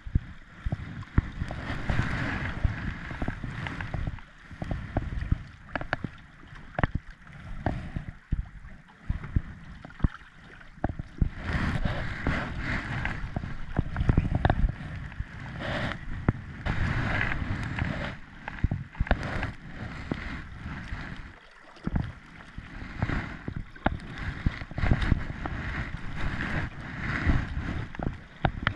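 Kayak paddle strokes and river water splashing and gurgling around the hull as the kayak moves through rippled current, with gusty wind rumbling on the microphone and occasional short knocks.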